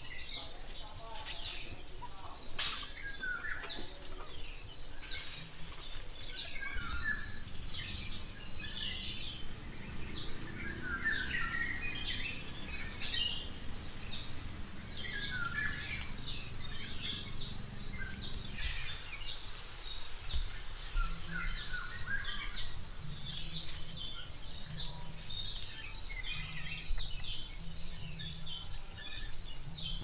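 Insects trilling in a steady, rapid, even pulse, the loudest sound throughout, with scattered bird chirps and calls over it.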